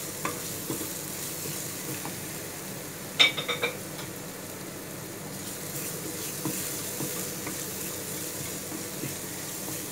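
Minced garlic sizzling in a little oil in a nonstick frying pan, stirred and scraped with a wooden spatula. About three seconds in, a quick run of about four ringing clacks as the spatula knocks against the pan.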